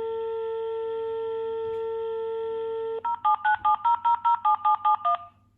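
DECT fall-sensor pendant auto-dialling its programmed emergency number: a steady dial tone for about three seconds, then a quick run of about a dozen touch-tone (DTMF) digit beeps.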